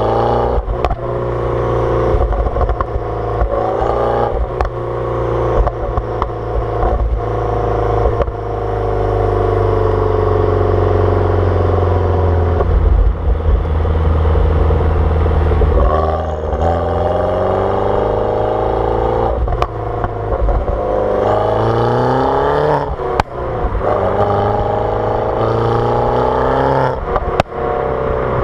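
R56 Mini Cooper S's turbocharged 1.6-litre N14 four-cylinder through a JCW exhaust with the catalytic converter removed, accelerating hard through the gears. The engine pitch rises and then drops at each gear change several times, with sharp crackles and pops around the changes.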